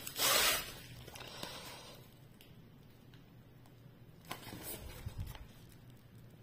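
Clear plastic sleeve around a rolled diamond-painting canvas rustling briefly as it is handled, then mostly quiet, with a few faint rustles and taps of the canvas being handled about four to five seconds in.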